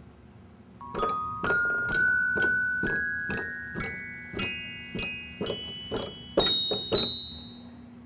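Schoenhut toy piano played in a rising run of single notes, about two a second, each struck note ringing and fading. Its tone comes from hammers striking metal bars, not strings.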